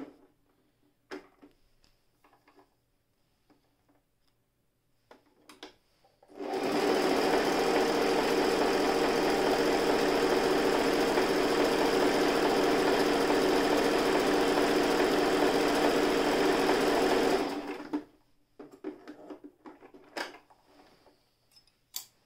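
Toyota Jeans JS021 electric sewing machine stitching steadily at an even speed for about eleven seconds, starting about six seconds in and stopping suddenly. A few faint clicks come before and after it as the machine is handled.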